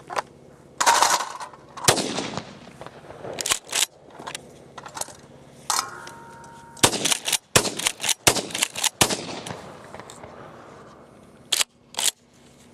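A string of 12-gauge pump shotgun blasts from a Remington 870, the loudest two in the first couple of seconds, each ringing out after it. A quick run of sharp reports and clacks comes about two-thirds of the way through, and two more sharp cracks come near the end.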